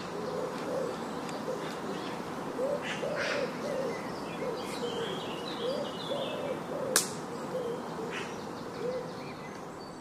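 A bird calling: a long series of short, low notes, each rising and falling in pitch, over a steady background hiss. There is a sharp click about seven seconds in.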